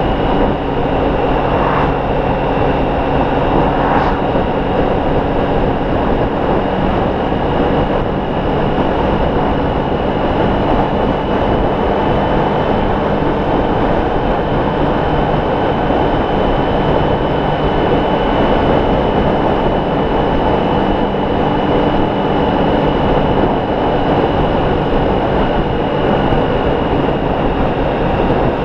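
Honda ST1300 motorcycle's V4 engine running steadily at cruising speed under a constant rush of wind and road noise, with a steady high whine running through it.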